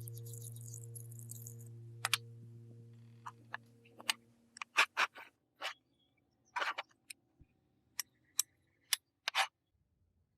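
A low held tone fading away over the first few seconds, then about a dozen short, sharp clicks and brief scraping noises at irregular intervals, stopping shortly before the end.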